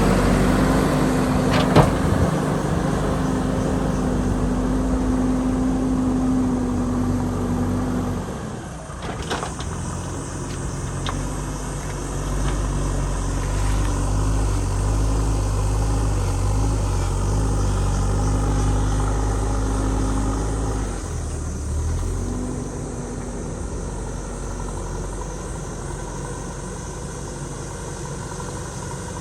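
JCB backhoe loader's diesel engine running under working load, dropping in pitch and loudness about eight seconds in and again about twenty-one seconds in. A sharp knock comes about two seconds in, with a few lighter knocks around nine to eleven seconds.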